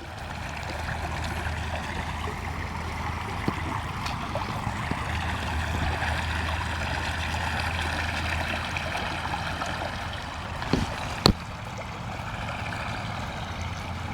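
Creek water running steadily over rocks, with a low rumble underneath. Two sharp clicks sound close together about eleven seconds in.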